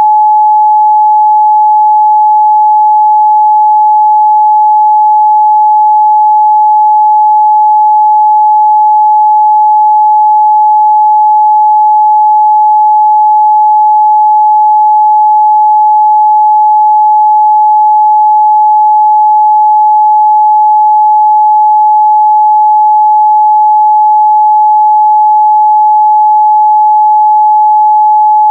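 A steady, loud 852 Hz sine-wave test tone, a single pure pitch held without change.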